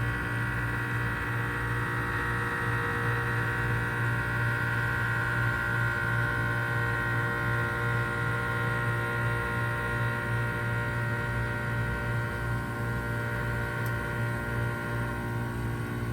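1995 Bard 3.5-ton wall-hung heat pump running during a defrost cycle: a steady low hum with a high whine over it that fades away near the end.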